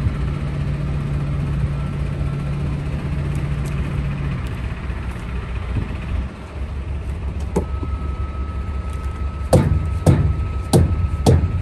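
Diesel semi-truck engine idling steadily, its note dropping lower about halfway through. Several sharp knocks come in the second half, and a thin steady high whine joins about two-thirds of the way in.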